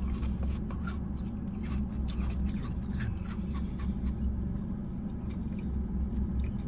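Wet mouth and spoon sounds of eating Italian ice from a plastic spoon: quick clicks, smacks and light scrapes, thickest in the first few seconds. Under them runs the steady low hum of the car cabin.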